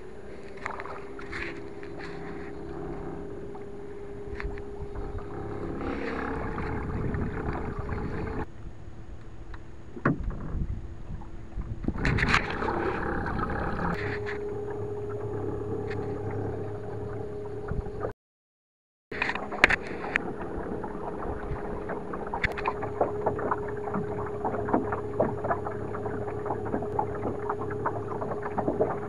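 Minn Kota Endura C2 30 electric trolling motor running at full speed: a steady whine over water and hull noise, with scattered knocks. The sound cuts out briefly about two-thirds of the way through.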